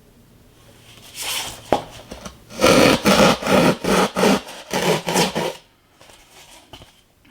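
A hand saw cutting through rigid insulation foam board in rasping back-and-forth strokes. A couple of lighter strokes come first, then quicker, steady strokes about three a second, stopping about five and a half seconds in.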